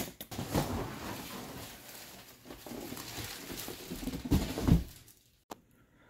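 A plastic packing strap snapping as it is cut with pliers, then cardboard packaging scraping and rustling as the box is worked off the unit, with a couple of knocks near the end.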